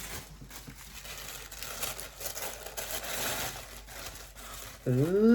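Wrapping crinkling and tearing as an item is unwrapped by hand, with irregular crackles that are busiest in the middle.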